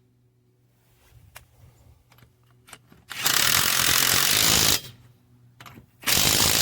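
AOBEN 21V cordless impact wrench run in two bursts of the trigger: a loud rattling whir about a second and a half long, then a shorter burst near the end. A few light handling clicks come before them.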